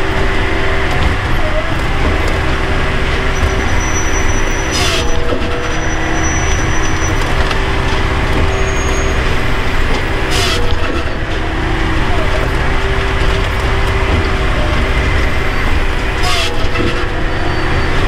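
Firewood processor's engine and hydraulics running steadily, heard from inside the operator's cab, with wood cracking as logs are cut and split. A short hiss cuts through about every five to six seconds.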